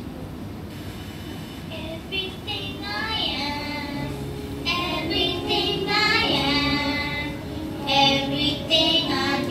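A group of young children singing together into microphones. The singing comes in about two seconds in, with a steady low sustained note underneath from about four seconds in.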